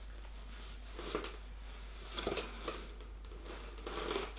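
A few soft rustles and light scuffs of paper and packaging being handled, as a magazine is taken from a parcel.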